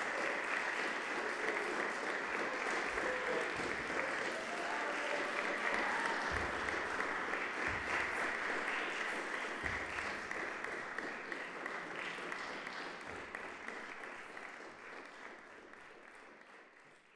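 Audience applauding, growing fainter over the last several seconds and fading out at the end.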